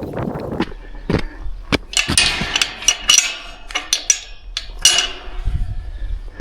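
Footsteps with carried gear knocking and clinking: irregular sharp knocks, with bright metallic rattles about two seconds in and again near five seconds.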